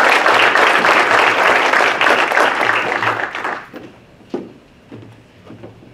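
Audience applauding, dense clapping that dies away about three and a half seconds in. A few scattered footsteps and knocks on the wooden stage floor follow.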